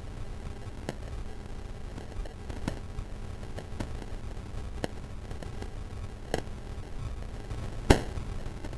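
Wood fire crackling, with sharp pops about once a second over a low rumble, the loudest pop about eight seconds in. The audio is degraded by a bitcrusher effect.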